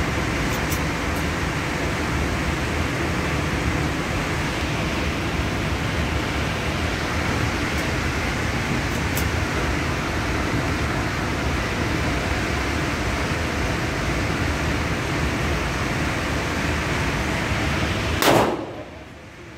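Steady loud rushing noise of an indoor shooting range's ventilation, with a few faint clicks. About 18 seconds in, a single loud gunshot cracks, and the overall level drops sharply right after it.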